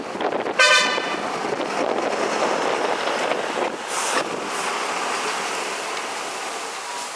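Decorated truck's air horn giving one short blast about half a second in, over the steady noise of trucks driving out. A brief hiss about four seconds in.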